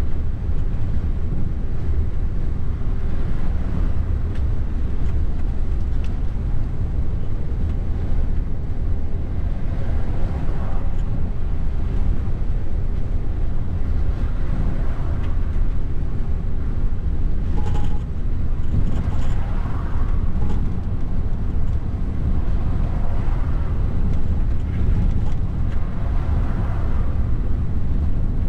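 Mercedes Actros truck's diesel engine and tyre noise heard from inside the cab at motorway cruising speed: a steady low drone, with soft swells in the road noise every few seconds.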